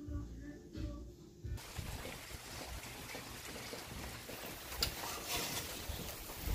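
Wind hissing and rumbling on the microphone outdoors, starting abruptly about a second and a half in, with a sharp click near five seconds. Before it there is a short stretch of faint low hum.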